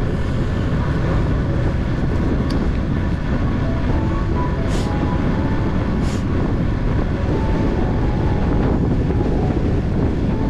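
Steady wind rush on the microphone of a camera riding on a moving bicycle, a loud low rumble, with a few short faint tones and ticks over it.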